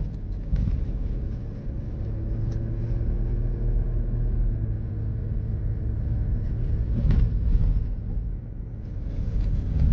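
Car driving on a rough dirt road: a steady low engine and road rumble with a faint engine hum, and a single knock about seven seconds in.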